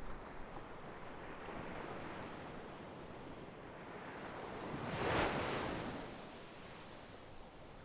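Ocean surf washing on a shore, with one wave breaking loudest about five seconds in and then receding.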